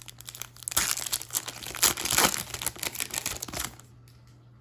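Crinkling and rustling of a trading-card pack's foil wrapper being handled and crumpled, lasting about three seconds and stopping near the end.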